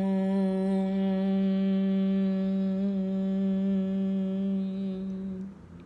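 A woman chanting a long, steady om on one low note, held as a hum and fading out about five and a half seconds in.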